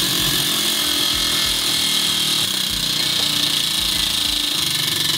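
Spinning prize wheel clicking: its pointer flapper ticks rapidly and evenly against the pegs as the wheel turns.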